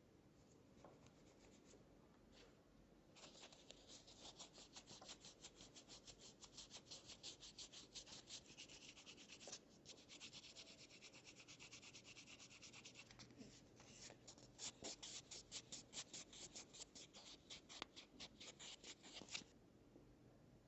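Abrasive paper rubbed by hand over the nose-pad area of an acetate spectacle frame: faint, quick, even back-and-forth scratching strokes, the hand finishing of the machined bridge. It starts about three seconds in, turns to steady rubbing for a few seconds in the middle, and stops shortly before the end.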